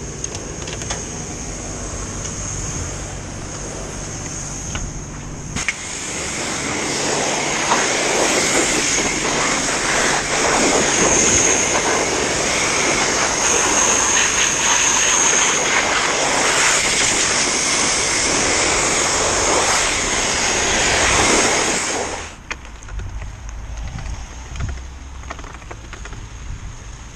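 Self-service car wash pressure-washer lance spraying a mountain bike: a loud, even hiss of the jet that starts about five seconds in after a steady machine hum and cuts off suddenly about 22 seconds in.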